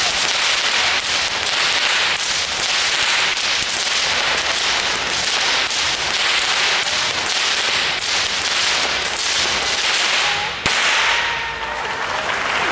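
Two whips cracked by one performer in a fast, continuous routine, about three sharp cracks a second. The run ends with a final crack a little before the end, after which audience applause begins.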